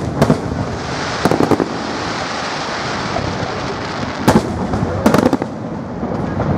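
Fireworks display: shell bursts going off as sharp bangs, one just after the start, a quick cluster of three or four about a second in, and more near four and five seconds in, over a continuous hissing crackle.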